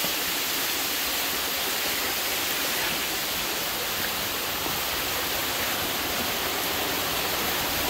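Meltwater running over rocks and dripping from the roof inside a snow cave: a steady, even rush.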